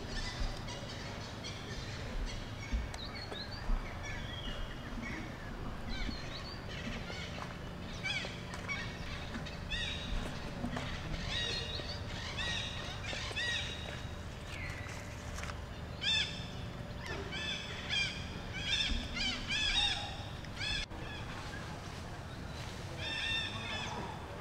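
Monkeys squealing: many short, high-pitched arching calls, scattered at first and then coming thick and fast for about ten seconds in the middle, over a steady low hum.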